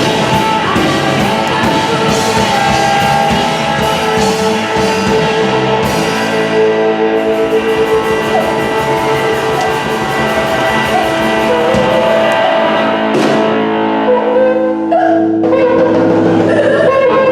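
Blues-rock band playing live: electric guitar over a drum kit, with some singing. The cymbal-heavy drumming thins out about six seconds in, leaving held guitar notes.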